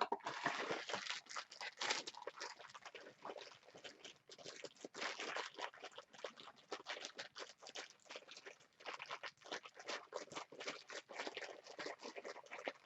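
Packaging of a Funko Mystery Minis blind box being torn open by hand: cardboard and the plastic wrap around the mini figure crinkling and tearing in quick, irregular crackles.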